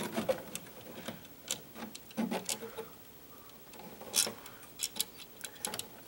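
Irregular small clicks, taps and rattles of a plastic wall switch and stiff wires being worked loose and pulled out of a crowded electrical box.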